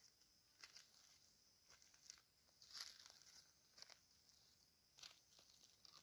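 Faint crackling and crunching of dry leaf litter underfoot as a person shifts and steps about, about six short scattered crackles.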